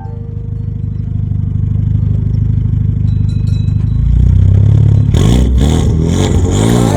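Renault Mégane III RS's 2.0-litre turbocharged four-cylinder, on a full decat exhaust, idling steadily and growing louder. From about five seconds in it is revved in a series of quick blips, the pitch rising and falling with each.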